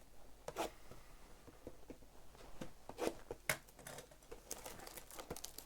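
Trading card boxes being handled and opened: plastic wrap crinkling and tearing, with scattered sharp cardboard clicks and taps, the loudest about three seconds in and again half a second later.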